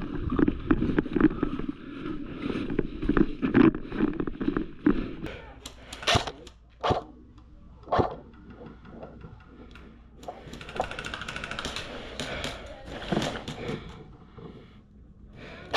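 Close rustling, knocking and crunching of an airsoft player's gear as he moves, then a few separate sharp clicks about six to eight seconds in, and a hissy scraping stretch near the end.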